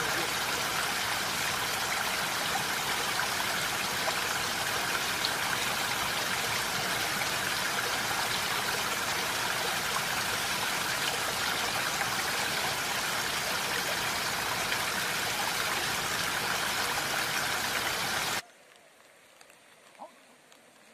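Steady, dense hiss of falling rain. It cuts off suddenly near the end, leaving a much quieter background with a single faint tap.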